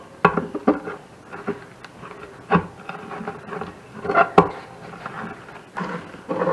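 Old rope gasket being pried and pulled out of the channel of an outdoor wood furnace's metal door: irregular scraping and rubbing with sharp knocks, the loudest about two and a half and four seconds in.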